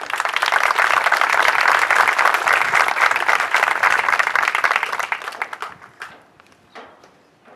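Audience applauding, beginning at once and dying away about six seconds in, with a few scattered claps after.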